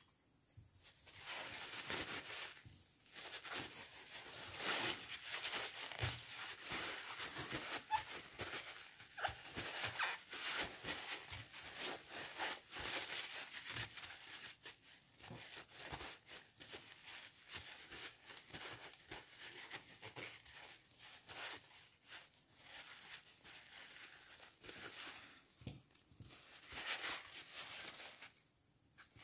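Paper towel rustling and crinkling as it is rubbed over a spinning reel's spool and body, wiping off excess lubricant spray. The rubbing comes in uneven strokes with many small crackles.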